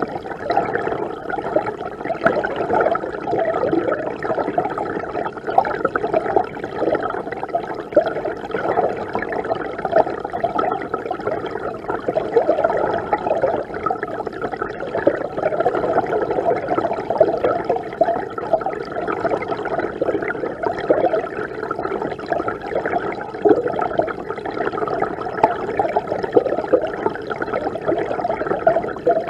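Mountain river water rushing and gurgling steadily, heard from within the river, so it sounds muffled with little hiss.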